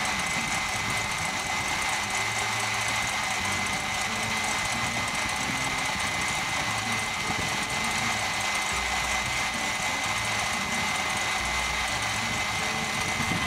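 KitchenAid stand mixer running steadily, its wire whisk beating stiff egg whites in a glass bowl as sugar is added, with a steady high whine from the motor.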